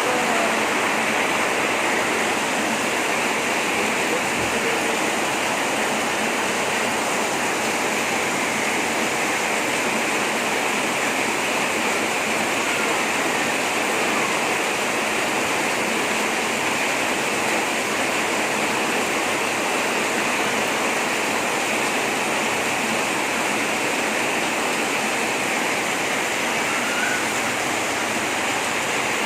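Heavy tropical rain pouring down in a steady, unbroken hiss.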